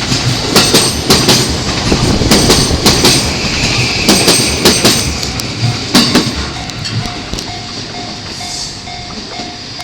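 E235 series electric train passing over a level crossing, its wheels clattering over the rail joints in close pairs of clicks, then fading away after about six seconds as the last cars go by. As the train noise drops, the crossing's warning bell comes through, a short repeated ding about twice a second.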